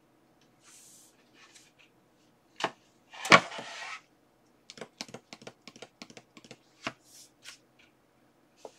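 Wooden futon-drawer parts and small assembly hardware being handled: a sharp knock, then a brief loud clatter as the board is set down, then a run of light clicks and taps, three or four a second.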